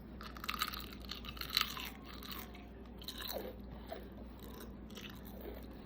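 A person chewing a mouthful of food close to the microphone, with crisp crunching that is densest in the first couple of seconds and then softens to slower, quieter chewing.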